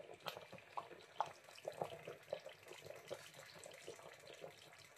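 Pots of meat stew and ewedu simmering on the stove: faint, irregular bubbling with many small pops.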